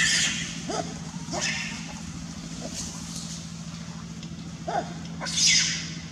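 Macaques screaming as they fight: several sharp, high-pitched screams, the loudest near the end, with a couple of short, lower calls between them. A steady low hum runs underneath.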